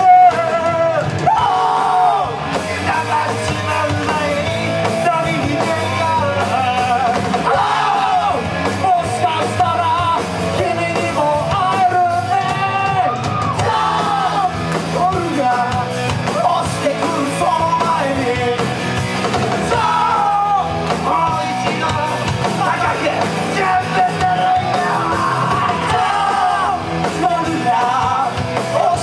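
Live rock band playing, with several voices singing together over electric guitar and drums.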